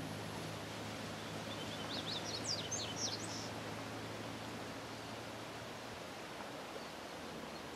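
Steady outdoor hiss with a faint low hum that fades out by the middle. About one and a half seconds in, a bird sings a short, quick run of high chirping notes lasting about two seconds.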